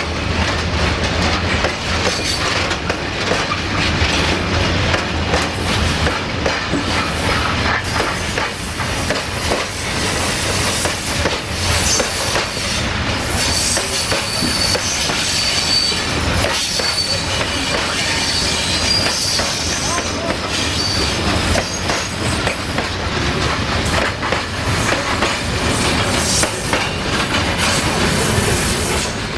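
Freight train of high-sided open wagons rolling past close by: a steady rumble with wheels clattering over the rail joints, and a high-pitched wheel squeal for several seconds around the middle.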